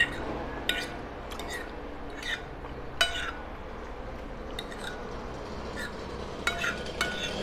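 Metal fork clinking and scraping against a ceramic plate while picking up gnocchi: about a dozen light, irregular clinks with a short ring.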